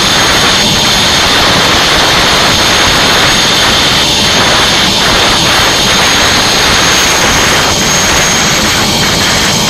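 Turbomeca Arriel 1D1 helicopter turboshaft engine running at close range: a loud, steady rush of turbine noise with a constant high-pitched whine.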